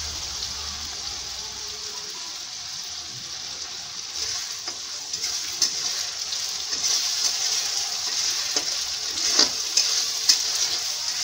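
Chopped onions and ginger-garlic paste sizzling in hot oil in a kadai while a metal spatula stirs them, scraping and clicking against the pan now and then. The sizzle grows louder about four seconds in.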